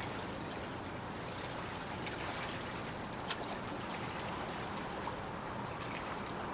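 Calm bay water lapping and trickling: a steady wash with a few faint clicks.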